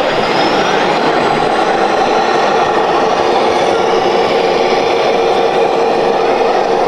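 Radio-controlled model vehicle running: a loud, steady mechanical drone with a held whine that grows clearer in the second half.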